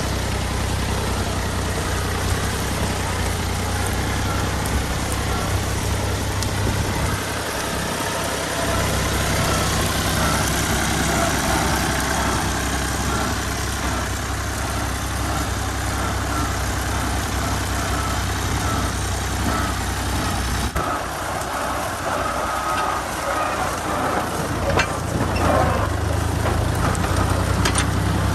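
Fiat 480 tractor's diesel engine running steadily under load, driving a wheat thresher, with a deep, even drone. The sound breaks off and changes abruptly about 21 seconds in.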